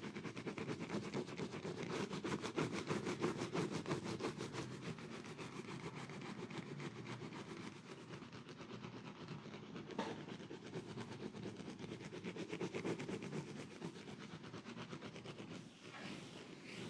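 Hands tapping rapidly on the head and neck in a percussive massage: a fast, even patter of many strokes a second, with one sharper click about ten seconds in.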